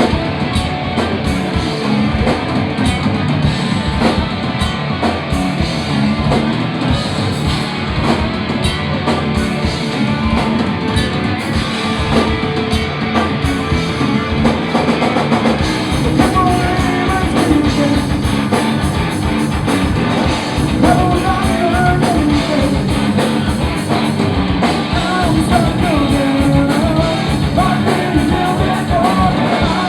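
Punk rock band playing live and loud: guitars and drum kit kick in together at once, and a singer's voice comes in about halfway through.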